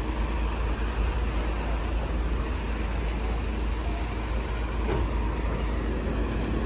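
Steady vehicle noise: truck and car engines running, with a constant deep low rumble.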